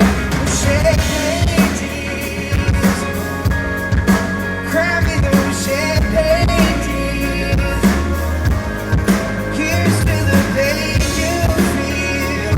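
Live pop-rock band playing: a drum kit keeping a steady beat over bass, with a wavering melody line on top.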